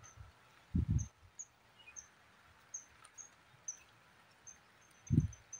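Small animal chirping: short high chirps a couple of times a second, coming faster near the end. Two brief dull low thumps, about a second in and near the end, are the loudest sounds.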